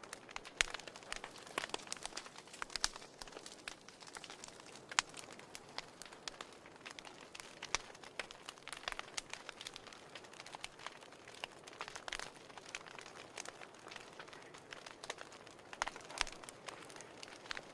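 Wood fire burning in a fireplace, crackling: a steady soft hiss with irregular sharp pops and snaps, a few louder ones scattered through.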